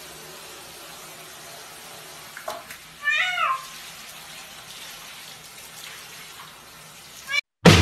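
Shower head spraying water into a bucket of water with a steady hiss, and a cat in the water meowing once, about three seconds in.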